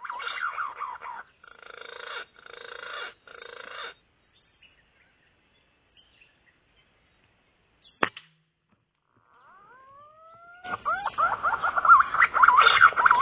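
Birds calling in rising and falling whistled notes, then a gap broken by a single sharp crack about eight seconds in. Rising whistles follow, and from about eleven seconds a loud, dense chorus of gliding bird calls.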